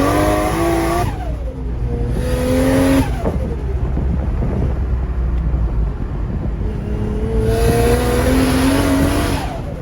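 Nissan Skyline R33's turbocharged RB25 straight-six engine accelerating in three pulls, the revs climbing and then dropping away quickly each time the throttle comes off, with a hiss over the top during the climbs.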